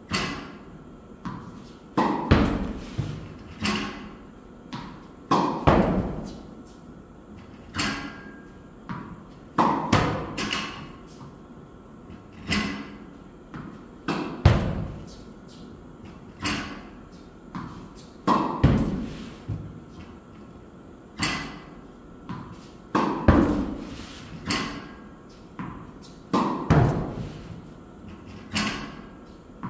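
Tennis balls struck by a racket during backhand practice, with the balls bouncing on the court floor and hitting the netting. The sharp knocks come about every one to two seconds, sometimes in quick pairs, and each one echoes in the small hall.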